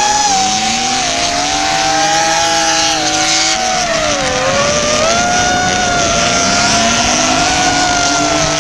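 Steady high-pitched whine of an FPV racing drone's motors and propellers, wavering in pitch with the throttle. Under it, drift cars' engines rev up and down hard.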